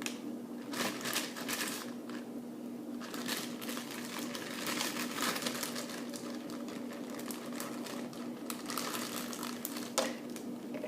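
Stringy, watery homemade slime being handled and packed back into its container, giving irregular sticky clicks and crackles, with one sharper click about ten seconds in.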